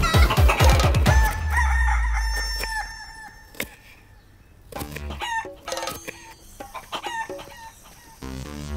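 A chicken squawking and clucking in short repeated calls, in two spells, over low rhythmic thuds in the first second or so.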